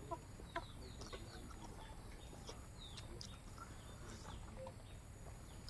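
Faint eating sounds of two people chewing and biting a meal of rice, meat and cucumber, with scattered short chirps and clucks from chickens and birds in the background.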